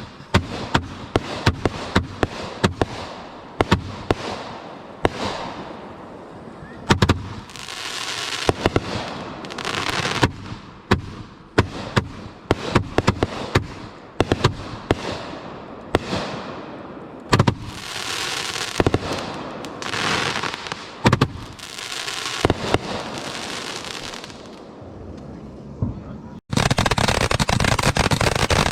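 Fireworks display heard close to the launch rack: a rapid, irregular barrage of sharp mortar-shell launches and bursts, with crackle and rushing hiss trailing between them. Near the end it cuts abruptly to a steady, dense rushing noise.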